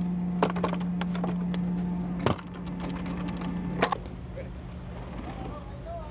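Sharp metallic clicks and knocks from ammunition cans being handled, six of them in the first four seconds with the loudest a little past two seconds in, over a steady low hum that stops about four seconds in. Faint voices near the end.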